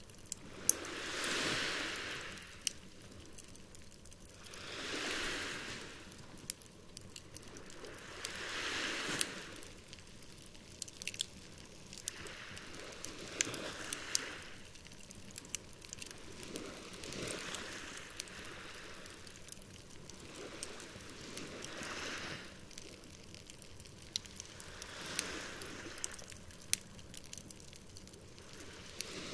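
Campfire crackling with frequent sharp pops, one louder pop about a second in, over small waves washing onto the shore in a slow swell about every four seconds.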